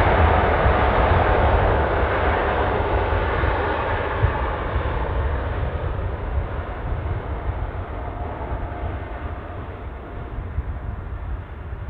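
Jet engines of a Boeing 777 airliner running at takeoff power during the takeoff roll. The noise is steady and dense with a deep rumble underneath, and it fades and grows duller as the aircraft moves away.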